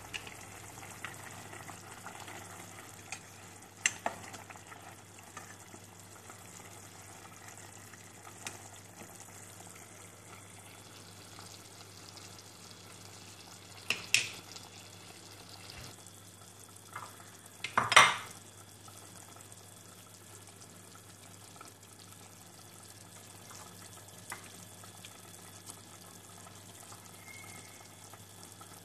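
Pot of chicken soup simmering on a gas stove: a steady low bubbling hiss over a faint steady hum. A few sharp knocks and clatters break through, the loudest about eighteen seconds in.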